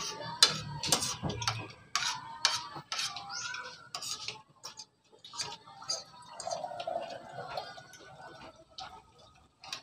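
Spoons and forks clinking and scraping against plates as people eat, a string of irregular sharp clicks.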